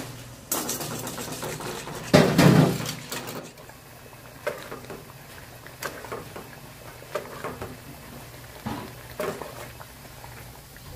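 Glutinous rice flour slurry poured from a steel bowl into a metal pot, splashing, loudest about two seconds in. Then a wire whisk stirs the thickening paste, clinking against the pot in scattered taps, over a low steady hum.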